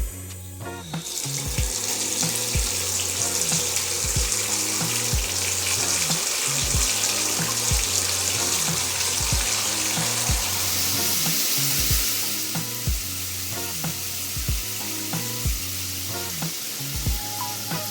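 Water spraying from a shower head, a steady hiss that starts about a second in, over background music with a steady beat.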